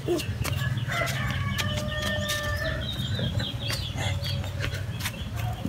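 A rooster crowing once, a held call of nearly two seconds starting about a second in, over a steady low hum and scattered clicks; a thin, wavering high call follows around three seconds in.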